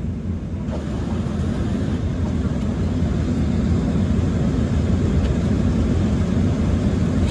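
Steady low drone of a jet airliner's cabin in flight: engine and airflow noise.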